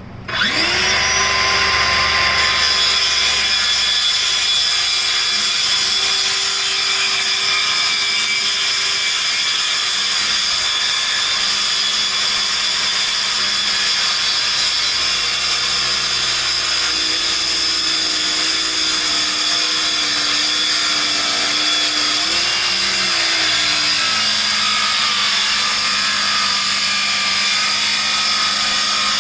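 Cordless power saw switched on, spinning up quickly and then running steadily as it cuts wood, its pitch dipping a little partway through.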